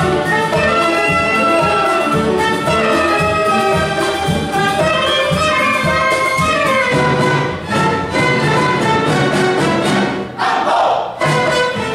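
Symphony orchestra playing a loud passage, with sustained chords over a steady repeating pulse in the bass.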